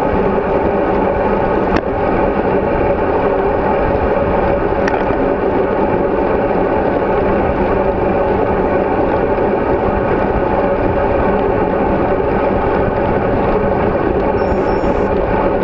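Steady wind rush and road noise on a bicycle-mounted GoPro action camera as the bike rides along at speed. A single sharp click comes about two seconds in.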